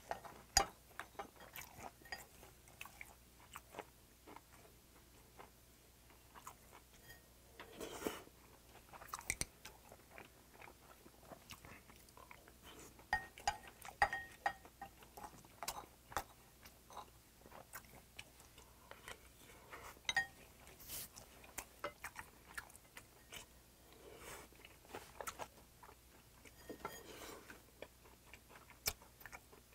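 A person chewing and eating close to the microphone: soft wet mouth sounds with scattered short clicks of a spoon and chopsticks against a ceramic bowl and plate.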